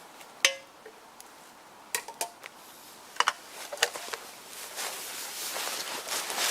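Metal camp cookware clinking and knocking: one sharp, briefly ringing clink about half a second in, then a few lighter knocks over the next three seconds, followed by a couple of seconds of rustling.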